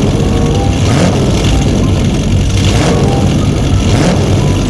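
Loud car engine running and revving, swelling up and down every second or so.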